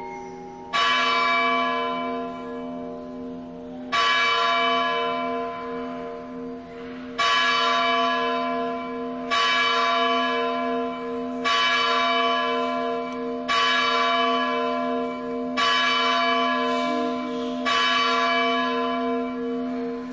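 A church bell tolling: eight single strikes two to three seconds apart, each with a long humming ring that carries over into the next.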